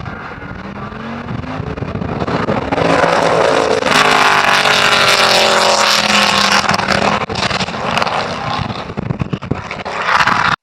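Racing car's engine at speed on a circuit, growing louder to pass close, its note falling as it goes by, then fading off.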